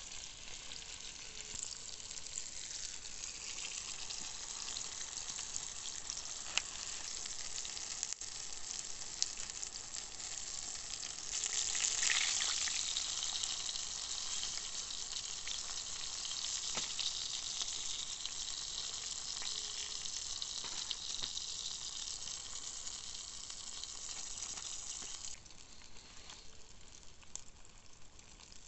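Fish fillets frying in hot oil in a pan over a wood fire: a steady sizzle that swells about twelve seconds in and drops sharply near the end, with a few small clicks.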